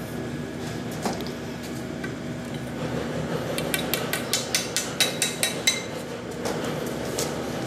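Claw hammer tapping a black end cap into the open end of a square steel tube on an engine test stand: one knock about a second in, then a quick run of about nine taps over two seconds, with a light metallic ring.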